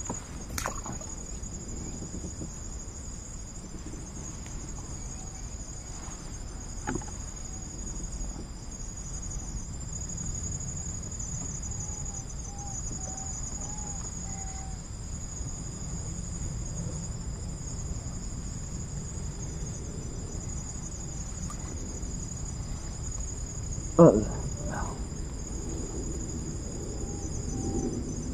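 Insects shrilling steadily in a continuous high-pitched chorus, with one brief sharp sound near the end.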